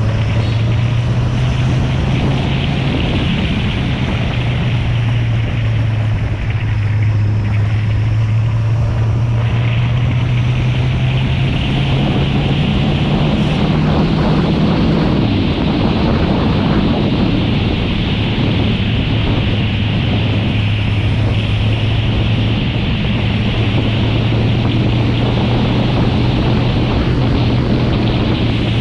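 Kawasaki Z750 motorcycle engine running steadily on the move, with heavy wind noise on the microphone. The engine note drops slightly about halfway through.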